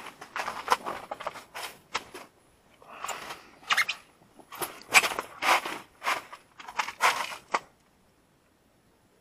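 Boots shuffling and crunching in snow on the ice and winter clothing rustling close to the microphone as the angler shifts and settles on his seat: a string of short crunches and scrapes that stops about three-quarters of the way through.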